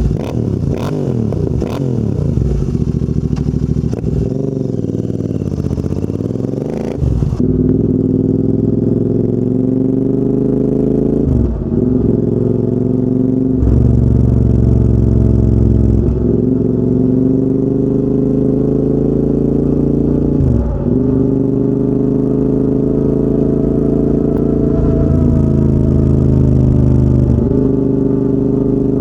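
Royal Enfield Interceptor 650 parallel twin running through a full TEC exhaust system while the bike is ridden. The note wavers at first, with a few sharp cracks. From about seven seconds in the engine pulls steadily, its pitch climbing and dipping briefly about six times, as at gear changes or throttle lifts.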